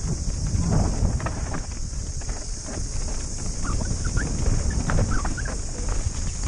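Santa Cruz mountain bike descending a dry, rough dirt downhill trail, heard from a helmet camera: a constant rumble of wind and tyres over dirt and rock, with many quick knocks and rattles from the bike over bumps.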